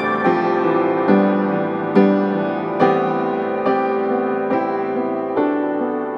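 Slow background piano music, with a new chord struck about once a second and each one left to ring.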